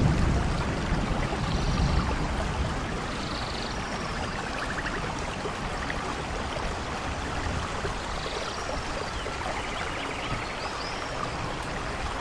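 Steady rain, with a low rumble of thunder dying away over the first couple of seconds. Short bird chirps come through the rain several times.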